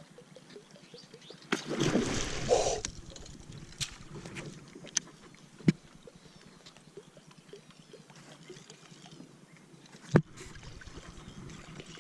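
A loud splash at the water's surface about two seconds in, a big Murray cod swiping at a surface lure and missing it. Then small water sounds, with two sharp knocks, near the middle and near the end.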